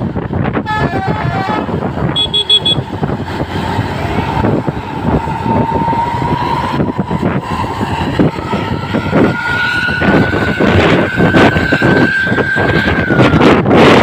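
Basuri "telolet" multi-tone bus horn playing a quick stepped run of notes about a second in, then long held horn notes, the last one dropping in pitch near the end. Traffic noise and wind buffeting on the microphone run underneath.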